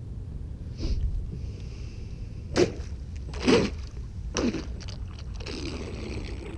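Electric RC racing catamaran's brushless motor and propeller in short blasts of throttle, three about a second apart, then running on as the boat pulls away across the water with a steady whine and spray hiss. Wind rumbles on the microphone throughout.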